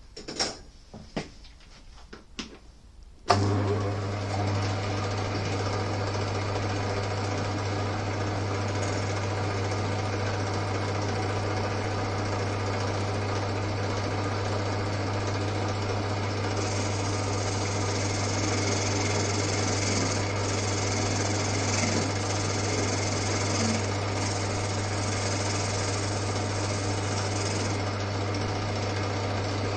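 A few clicks, then the old Winfield lathe's electric motor switches on about three seconds in and runs with a steady hum. From about halfway, a higher hiss joins for some ten seconds and then stops, typical of the tool taking a cut in the turning work.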